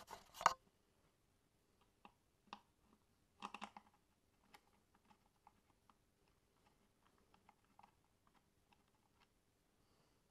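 Faint scattered metal clicks and taps of hand tools and bolts being handled on the engine, with a short louder clatter at the start and another about three and a half seconds in.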